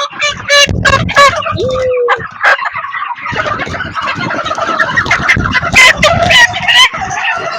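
A large flock of chickens in a poultry house clucking and squawking loudly, with many overlapping calls and sharp squawks.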